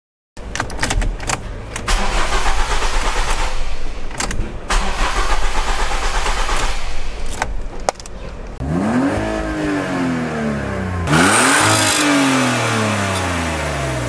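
Ford Focus engine turning over on the starter without catching, cranking in several runs with short breaks. About eight and a half seconds in, a car engine is revved up and let fall back twice.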